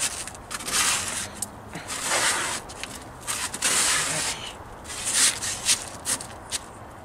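Hard, dry snow being scraped and scooped together by hand on a table top: several scrapes with short pauses between, and a few small knocks near the end.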